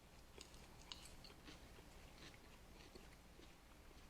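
Faint chewing: soft, scattered mouth clicks of someone eating at the table.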